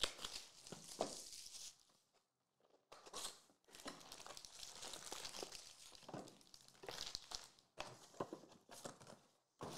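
Crinkling and rustling of a Panini Prizm hobby box being opened by hand: cardboard flaps torn open and foil-wrapped card packs pulled out and stacked, with a short pause about two seconds in.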